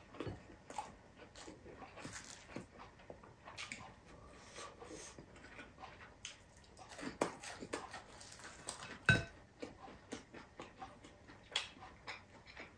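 Close-up eating sounds: chewing and fingers picking at rice and fried fish on a plate, in scattered short clicks and smacks. About nine seconds in there is one louder knock with a brief ring, like a plate or glass being touched.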